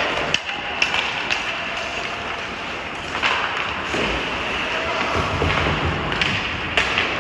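Ice hockey play: a steady hiss of skates on the ice, several sharp clacks of stick and puck, and players' shouts.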